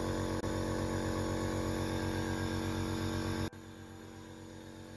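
Compressor nebulizer running with a steady buzzing hum and a fast, even pulse. Its level drops sharply about three and a half seconds in.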